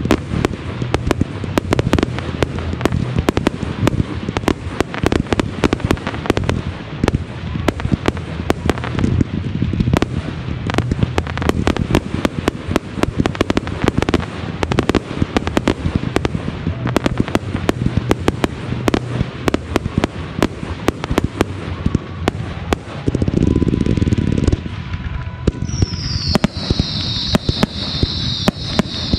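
Consumer 1.4G fireworks (cakes and aerial shells) firing in rapid succession, a dense run of pops and bangs. About three quarters of the way through comes a louder rushing burst, and near the end a high hiss joins in.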